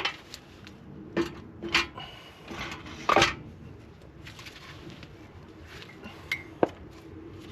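Metal parts clinking and clanking in a handful of short knocks, the loudest about three seconds in: a steel brake backer plate and wheel hub being handled and fitted over the hub studs.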